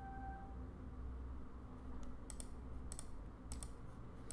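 A handful of short, sharp clicks from operating a computer, bunched in the second half, over a low steady hum.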